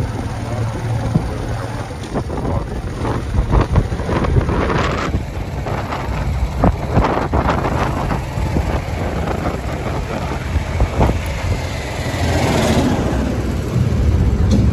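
Vehicle in motion, its engine and road rumble steady underneath, with wind buffeting the phone's microphone in irregular gusts.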